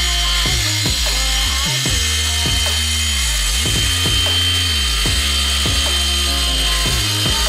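Background music with a stepping bass line and repeated falling slides, over the steady high whine of an electric wet tile saw's 1 HP motor and blade running through the cut.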